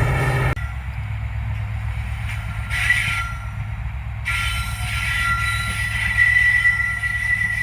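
WDP4D diesel-electric locomotive running, its big EMD two-stroke engine giving a steady low drone. The level drops abruptly about half a second in. A high steady whine comes in briefly near three seconds and again from about four seconds on.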